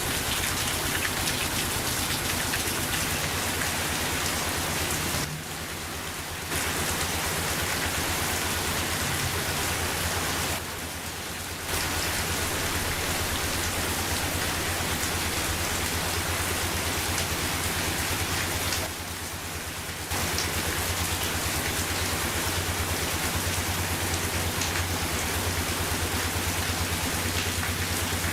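Steady hiss of rain over a Quick G3000 Zeva two-wheel hand tractor's engine running at a steady pitch. The whole sound dips briefly three times.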